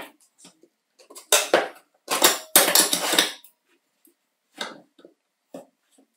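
Small metal parts being handled: a sharp clink, then a few longer scraping, rattling strokes, and a few short knocks near the end.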